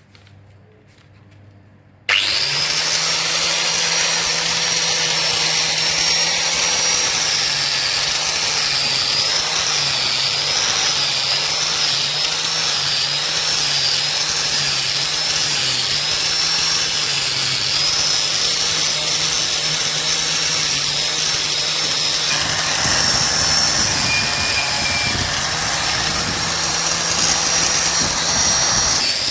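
Electric power tool switched on about two seconds in and running steadily, with a low hum and a high whine whose pitch wavers a little.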